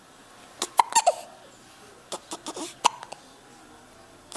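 Baby hiccupping: a few short, sharp hics with small squeaky catches, about a second in and again around the two-to-three-second mark.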